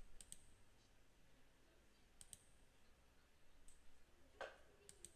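Near silence broken by a few faint, scattered clicks at the computer, the clearest a little over four seconds in.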